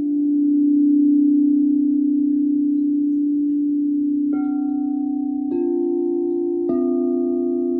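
Crystal singing bowls ringing in long sustained tones. Three more bowls are struck in turn, about a second apart, starting a little past halfway, each adding a new ringing note over the others.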